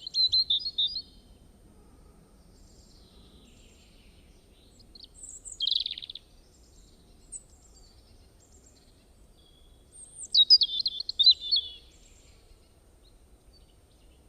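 A bird singing in bursts of quick, high, warbling notes: one phrase at the start, a short one about six seconds in, and a longer one about ten seconds in, with fainter chirps in between.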